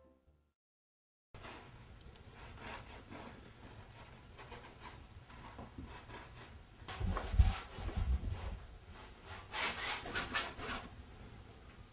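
Bristle paintbrush scrubbing and dragging thick paint across a canvas in rough, uneven strokes, starting a little over a second in. Harder strokes come about seven seconds in, the first with low thuds, and again around ten seconds in.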